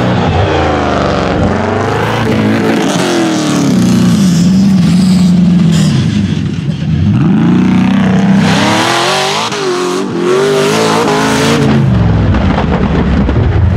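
Rock bouncer buggy engines revving hard, the pitch climbing and dropping again and again as the throttle is worked through the jumps.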